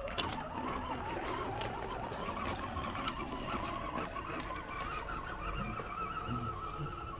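Electric motor and gearbox of an RC4WD Gelande II FJ40 scale crawler whining, the pitch wavering up and down with the throttle, with small clicks of shale stones under the tyres.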